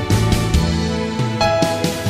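Instrumental background music: a melody of held notes over a steady bass line.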